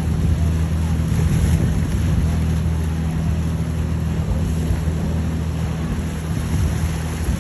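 Boat engines running steadily under way, a constant low drone, with wind buffeting the microphone and rushing water.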